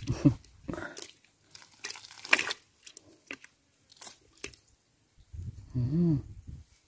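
Scattered crunches and clicks of a cast net and its catch of small fish and snails being handled and sorted by hand. A short voiced hum from a person near the end.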